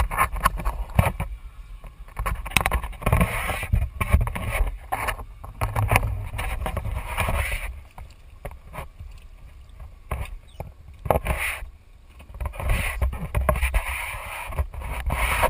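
Water splashing in irregular bursts as a hooked sailfish thrashes at the surface against the boat's side, over a constant low rumble.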